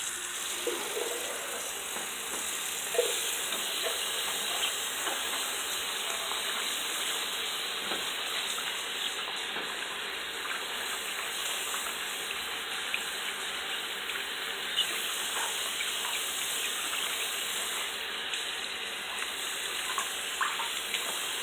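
Cold water running steadily from a sink tap and splashing over football receiver gloves as they are rinsed, with a few brief louder splashes.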